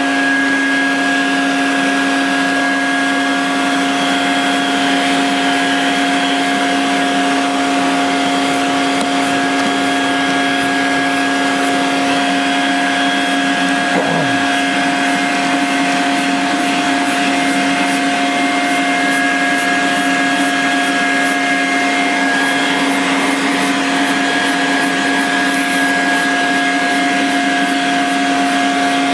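Vacuum cleaner running steadily with a constant hum, vacuuming packed dirt off the coils of a window air conditioner. About halfway there is a brief sound that falls in pitch.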